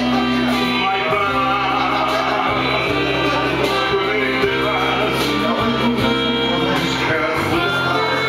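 Live music amplified through a PA speaker: a man singing a song into a handheld microphone, accompanied on an electronic keyboard.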